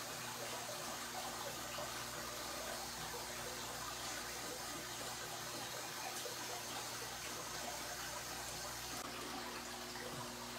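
Aquarium water noise: a steady rush and bubbling of water from the tank's aeration bubble columns, with a low steady hum underneath.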